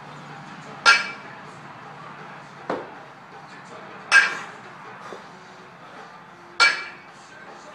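A single 18 kg kettlebell worked through long-cycle clean-and-jerk reps: three sharp metallic clinks with a short ring, a few seconds apart, and one duller thump between the first two.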